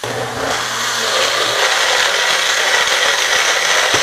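Magic Bullet blender motor starting with a sudden kick and running steadily, blending a thick sauce of cashews, yogurt, cilantro, ginger and red curry paste toward a smooth purée. It grows louder over the first second.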